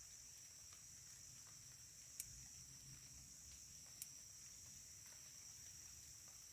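Faint, steady high-pitched drone of insects, with two faint sharp clicks about two and four seconds in.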